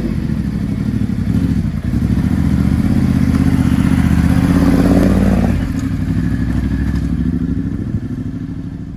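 Ducati adventure motorcycle's engine running at low revs as it is ridden slowly past and then away, loudest as it passes about halfway through and fading near the end.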